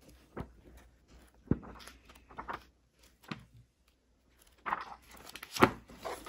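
Pages of a thick hardback encyclopedia being turned by hand: a series of short paper rustles and flaps, the sharpest about a second and a half in and again near the end.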